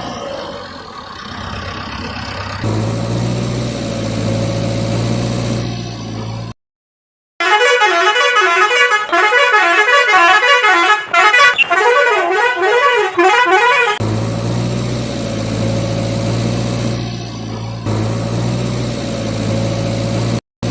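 A steady vehicle engine hum, cut off by a brief silence, then a loud warbling vehicle horn that rises and falls rapidly for about six seconds before the engine hum returns.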